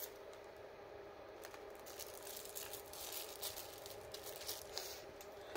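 Faint crinkling and scattered light clicks of packaging being handled as new camera batteries are unpacked, over a steady faint hum.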